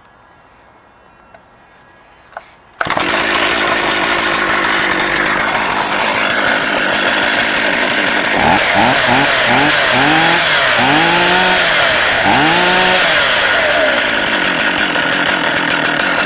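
STIHL MS440 two-stroke chainsaw starting abruptly about three seconds in and running steadily. Midway it is revved up and back down about five times in quick succession, then settles back to a steady run.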